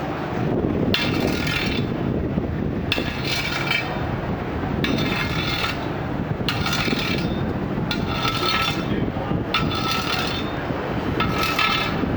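Steel bars clanged together over and over, each clash ringing briefly with a metallic tone, about nine times at uneven intervals of one to two seconds, over a steady low rumble.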